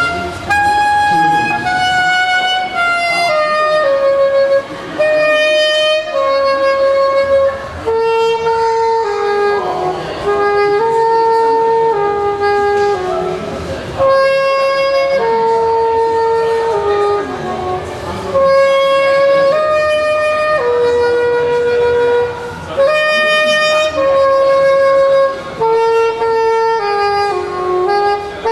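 Instrumental background music with a slow melody of long held notes.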